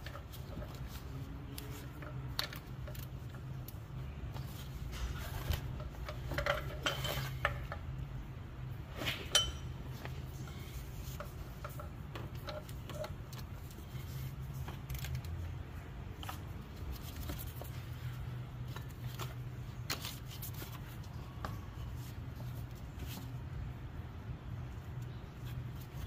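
Scattered metallic clicks and clinks of a hand tool against the serpentine belt tensioner and pulleys while the belt is refitted, busiest in a cluster a few seconds in, with one sharper click about nine seconds in. A steady low hum runs underneath.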